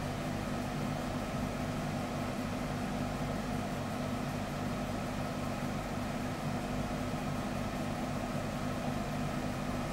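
Steady mechanical hum with a low held tone, unchanging throughout: background machine noise in the room.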